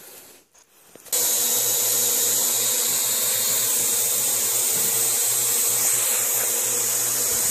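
Quadcopter drone's rotors starting up suddenly about a second in, then running steadily as it hovers: a constant whirring buzz with a steady tone.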